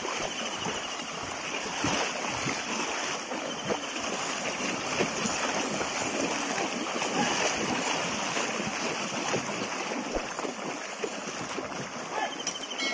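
Two bullocks wading and splashing through a shallow stream while hauling a loaded cart. There is a continuous, irregular rush of splashes from the hooves and cart wheels churning the water.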